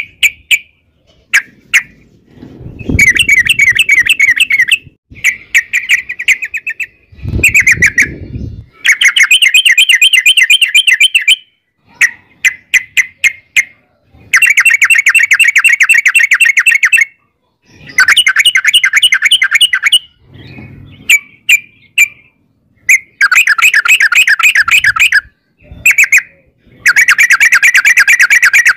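Yellow-vented bulbul singing: long, rapid rolling trills of quickly repeated notes, each run lasting a few seconds, alternating with short clusters of separate chirps. Twice, early on, a low rumble sits under the song.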